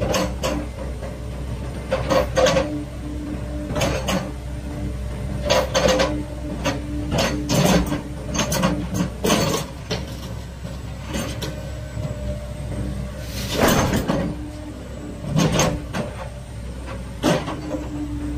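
9-ton Sany SY95 tracked excavator running steadily while its hydraulic boom, arm and bucket are worked, with repeated short bursts of hydraulic noise and clunks every second or two as the controls are moved.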